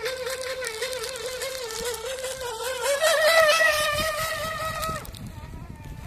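Electric motor of a small radio-controlled speedboat running on a 3S LiPo pack, giving a steady wavering whine. About three seconds in the whine rises in pitch and grows louder as the boat speeds past close by, then falls away sharply about five seconds in.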